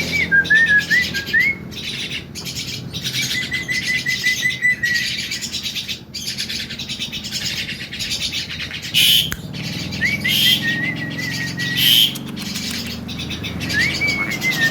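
Javan myna chattering: a fast run of dry clicking notes mixed with short wavering whistles, with three louder harsh calls about nine, ten and a half and twelve seconds in.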